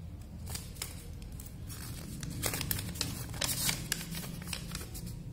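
Folded paper user-manual sheet being unfolded and handled: irregular crinkling and rustling of paper, busiest around the middle.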